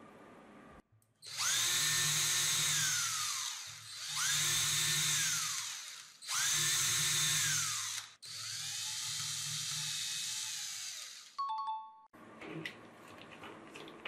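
Electric drill drilling small holes into a wooden board: the motor spins up, holds and winds down four times in a row.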